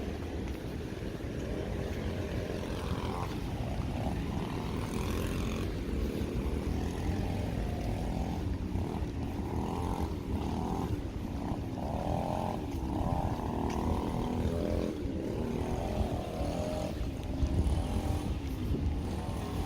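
Street traffic passing: cars running by with a steady low rumble and engine tones that rise and fall as they go past.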